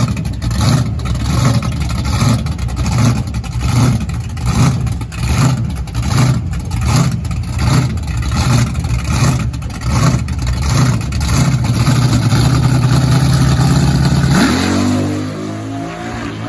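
Ford Falcon hardtop drag car's engine idling with a lumpy, loping beat, then held at steady higher revs for about three seconds. Near the end it launches, the revs climbing as the car pulls away and fades.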